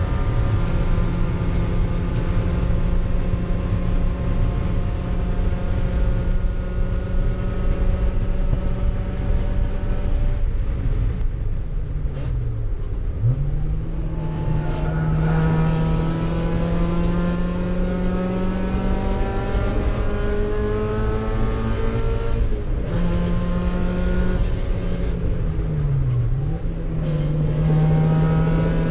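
Mazda Miata race car's four-cylinder engine heard from inside the cockpit, held at high revs. About halfway through and again near the end the revs drop away as the driver lifts and slows, then climb back as the car accelerates, over steady wind and road noise.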